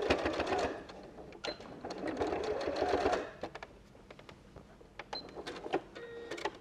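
Electric sewing machine stitching in two short runs, a brief one at the start and a longer one of about a second and a half from two seconds in, tacking a fabric bow onto a padded collar. Light clicks from handling the fabric and machine follow.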